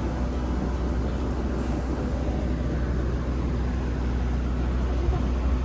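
A boat's engine running steadily under way, with a constant low rumble.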